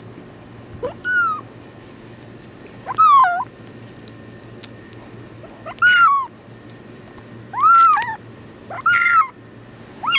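Tuxedo kitten meowing while being held: about six short, high-pitched, squawky cries, one every second or two, each rising and falling in pitch. The kitten is protesting at being picked up.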